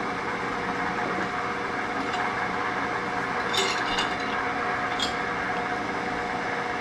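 Large steel C-clamp clinking against the metal part and fixture as it is picked up and set in place, three sharp clinks about halfway through, over a steady motor hum.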